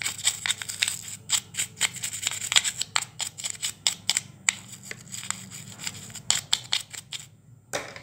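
Cotton swab scrubbed hard inside the plastic battery compartment of an RC toy, a rapid run of scratchy rubbing strokes. It is cleaning out the seats of the damaged battery terminals. The scrubbing stops shortly before the end, followed by one sharp click.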